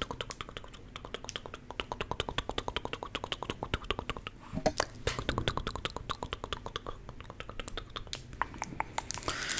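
Rapid, crisp close-miked ASMR clicking, several sharp clicks a second in an uneven run, as from long fingernails or mouth clicks. A short low vocal sound comes about halfway through.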